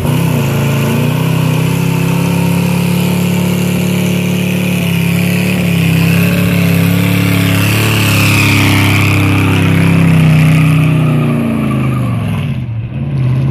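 V8 car engine held at high revs during a burnout, the rear tyres spinning into a cloud of smoke. The revs climb in the first second, stay up for about eleven seconds, then drop off near the end.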